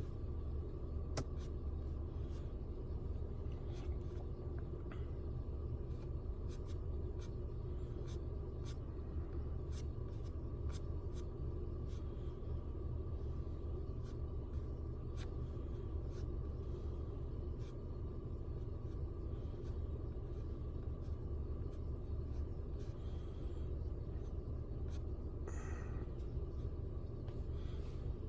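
Computer mouse clicking at irregular intervals, sharp single clicks, over a steady low hum.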